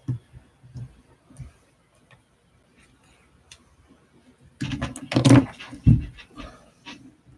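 Handling noise from the recording device as it is picked up and tilted: a few soft knocks, then a louder jumble of bumps and muffled rubbing about two-thirds of the way in.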